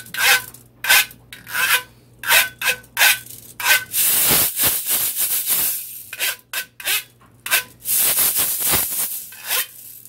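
A large ridged metal tube instrument with metal end caps, a güiro-like scraper, scraped with a stick: a run of short scrapes at about two to three a second, with longer drawn-out scrapes about four seconds in and again near the end.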